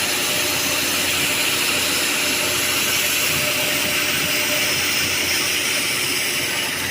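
Repair truck's engine running steadily under a constant hiss.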